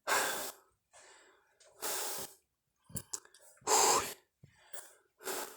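A man breathing hard, with four heavy breaths spaced about two seconds apart. He is short of breath and struggling to get his wind back. A few faint clicks sound about three seconds in.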